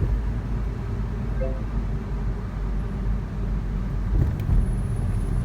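Subaru WRX STI (VAB) driving along at a steady pace: a constant low rumble of engine and road noise heard from inside the cabin, with a couple of louder thumps about four seconds in.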